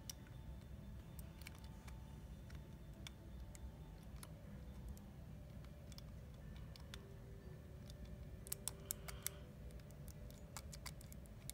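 Faint, sparse clicks of a Master M175 combination padlock's number wheels being turned notch by notch, with a quick run of clicks about eight and a half seconds in and more near the end, over a low steady hum.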